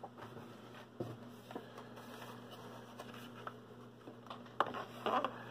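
Blister-carded die-cast toy cars being handled: scattered light clicks and taps of card and plastic packaging, with a brief cluster of louder rustling knocks near the end, over a faint steady hum.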